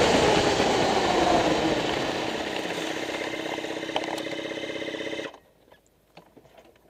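Pro Stock drag-racing motorcycle engine winding down with falling pitch as the bike slows, then idling steadily, and cut off abruptly a little over five seconds in; afterwards only a few faint clicks.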